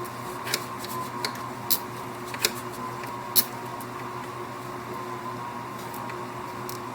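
Several light, irregular clicks, mostly in the first half, from the plastic print-head gap adjustment cam of an Epson U220 printer being swung in against a feeler gauge and stepped through its detents, over a steady hum.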